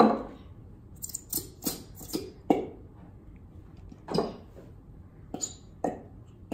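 A sharp knock as a shaving cream can is set down on a wooden tabletop. Then comes a string of shorter clicks and taps as plastic glue bottles and a glass measuring cup are handled.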